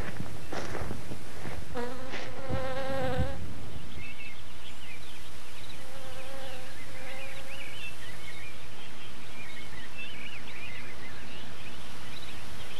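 A flying insect buzzing in passes, about 2 to 3 seconds in and again more faintly around 6 to 7 seconds, over steady hiss. Scattered short, high chirps run through the rest.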